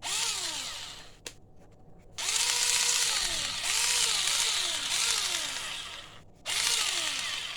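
Small cordless drill-driver motor run in three bursts, its whine rising and falling as the trigger is squeezed and eased several times. It is a working test of the drill on its newly fitted battery.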